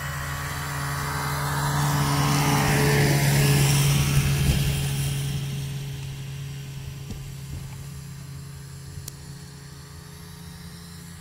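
Snowmobile engine running as it travels over snow, growing louder to a peak about four seconds in and then fading as it moves off, over a steady engine hum.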